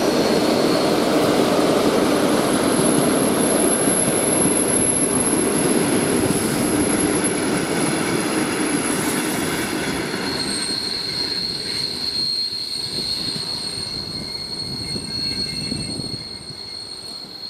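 An ER9M electric multiple unit running past on its arrival, its wheels and carriages rumbling on the track, with thin high squealing tones over the rumble. The rumble fades from about ten seconds in as the last cars pull away.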